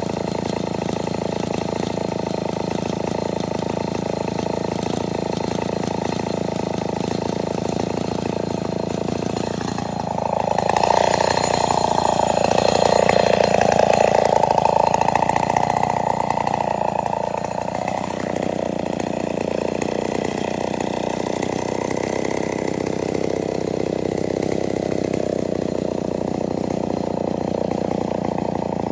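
Two-stroke chainsaw running steadily. About ten seconds in it speeds up and grows louder, its pitch rising and falling for some eight seconds, then drops back to a steady run.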